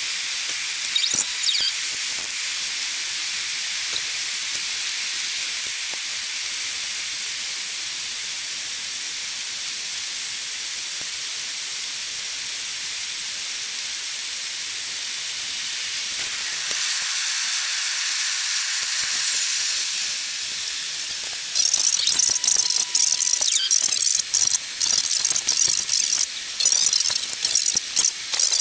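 Airbus A380 cabin noise during approach and landing, sped up tenfold into a steady high hiss. A louder stretch of a few seconds comes about two-thirds of the way through, and near the end the sound breaks into a fast, choppy flutter.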